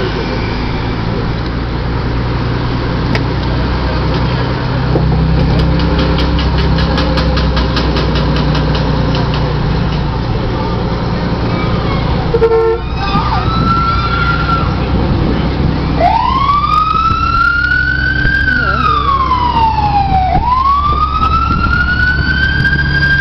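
Heavy vehicles rumbling past, a fire engine among them. Just past halfway there is a brief loud blast, and about two-thirds in the fire engine's siren winds up to a high wail, slides back down, winds up again and holds.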